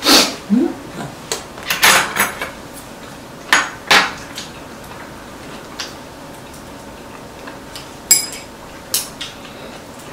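Metal chopsticks and spoons clinking and tapping against ceramic bowls and plates during a meal: a scattering of sharp, irregular clinks, the loudest at the very start and around 2 and 4 seconds in.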